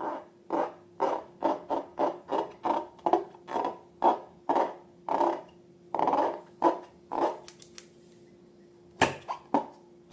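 Slime being squished and worked by hand: a run of short squelches, about two to three a second, that stops about seven seconds in, followed by a few sharp clicks near the end.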